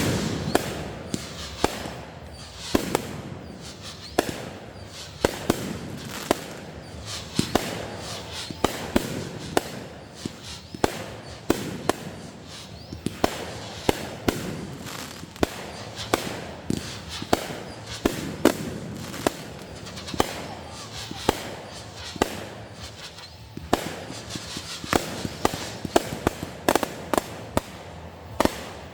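Fireworks going off: a steady run of sharp bangs and pops, one or two a second at irregular spacing, with a crackling haze between them.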